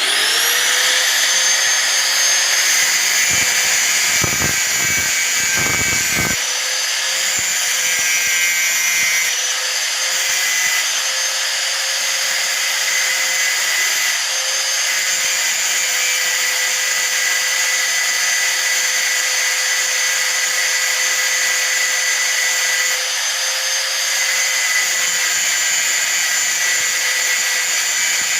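Hand-held angle grinder switched on, its whine rising as the motor spins up, then running at a steady pitch while grinding a rusty iron nail. A few low thumps about four to six seconds in.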